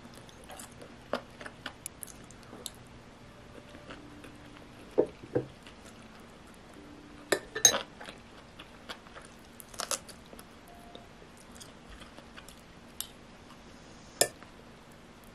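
Metal spoon and chopsticks clinking and scraping against a ceramic bowl during a meal, a scattering of sharp clicks with the loudest around five, seven and a half, ten and fourteen seconds in, with soft chewing between.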